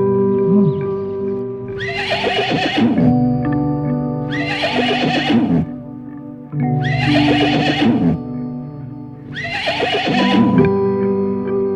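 A horse whinnying four times, each call about a second long and coming about every two and a half seconds, over background music with sustained tones.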